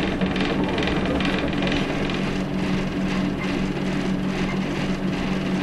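Diesel multiple unit's underfloor engine running steadily, heard from inside the passenger saloon, with a steady low hum and a rhythmic beat about two or three times a second.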